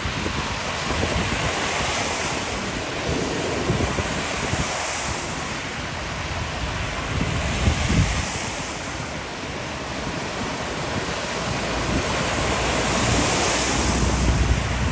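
Severe storm outdoors: a steady rushing noise of strong wind and heavy rain, with gusts buffeting the microphone, swelling a little near the end.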